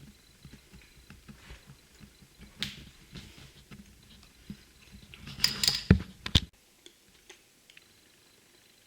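Hands handling small hard objects: scattered light clicks and taps, then a cluster of louder knocks and rustling about five and a half to six and a half seconds in, after which the sound stops abruptly.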